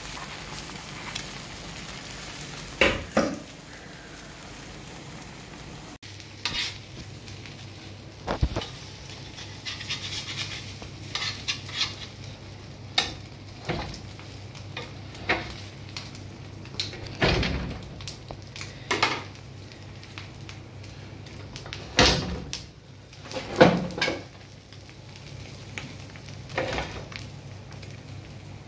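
Ostrich egg frying in butter on a large tawa griddle, sizzling steadily. A metal knife scrapes and taps against the griddle every second or two, with the loudest knocks near the end.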